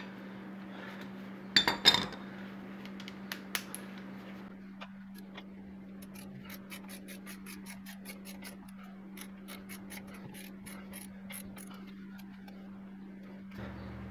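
Hand ratchet wrench clicking in quick, even ticks, about four a second, as a bolt on the brake assembly is turned out by hand, after a couple of metallic clanks of tools near the start.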